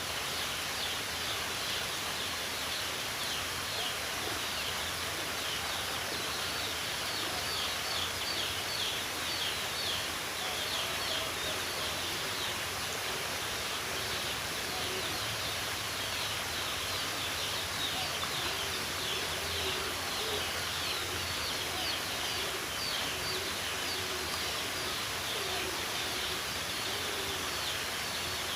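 Birds calling outdoors: many rapid, high, short falling chirps, and from about a third of the way in, low repeated notes. All of it sits over a steady background hiss.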